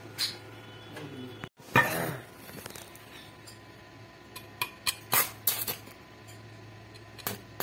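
A loud metal knock about two seconds in as the work is handled, then a short run of sharp crackles and snaps about four and a half to six seconds in: a stick welding electrode being scratched on a steel plate to strike the arc, throwing sparks.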